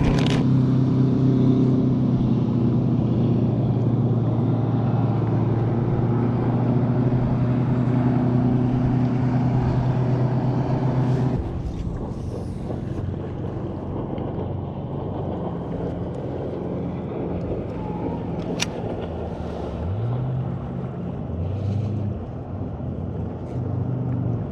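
MotorGuide Xi3 electric trolling motor running with a steady hum over low wind rumble. The hum drops away about halfway through. Near the end it spins back up twice with a rising pitch and settles into a steady hum again. A single sharp click sounds about two-thirds of the way in.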